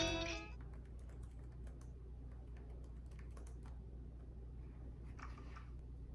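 Typing on a laptop keyboard: quick, soft key clicks over a steady low room hum, with a brief rustle about five seconds in.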